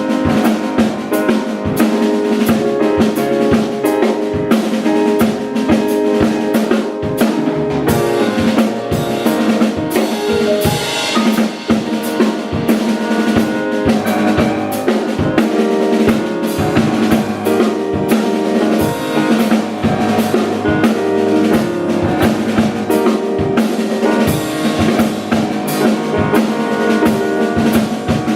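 Instrumental music played live, a drum kit keeping a steady beat with snare and bass drum under several pitched instruments.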